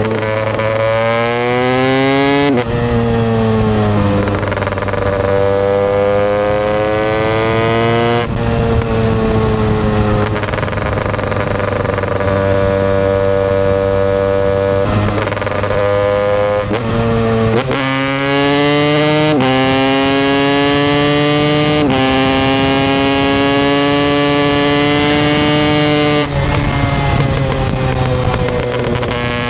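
Husqvarna TE 250i two-stroke single-cylinder dirt bike engine under way. Its pitch climbs on the throttle and then drops sharply several times, as when shifting up through the gears, with stretches held at a steady pitch in between.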